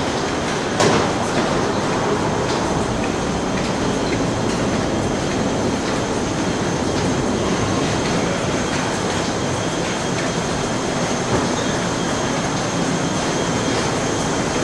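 Steady rumbling noise of a parked airliner and its ground equipment heard inside an enclosed jet bridge, with a thin, steady high whine over it. A couple of short knocks come about a second in.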